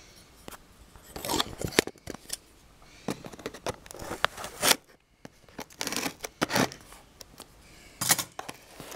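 Scissors cutting the packing tape on a cardboard box: irregular bursts of snips, clicks and scraping against the cardboard.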